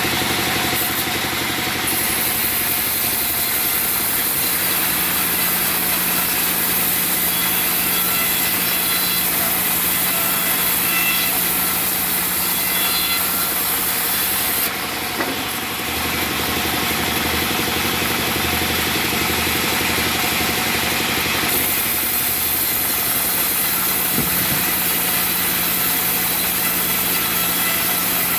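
Sawmill cutting through a nyatoh log: steady loud sawing noise over a constant machine hum. For several seconds past the middle, the hiss thins and a lower rumble comes up, then it returns to the earlier sound.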